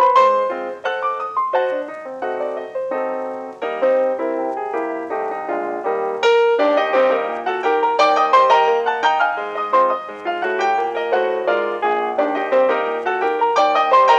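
Ragtime piano music playing a busy run of quick notes.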